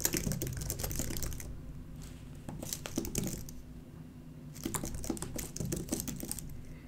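Typing on a computer keyboard: rapid keystrokes in three short runs with brief pauses between them.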